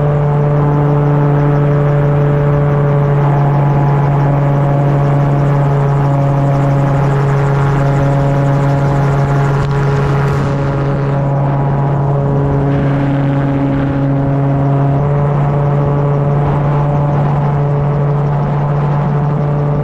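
Homemade gyrocopter's engine and propeller running steadily in flight, a constant loud drone. The hiss above it eases a little about halfway through.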